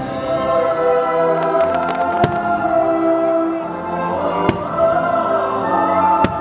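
Firework shells bursting, three sharp bangs about two seconds apart with a few lighter cracks before the first, over loud orchestral show music with a choir.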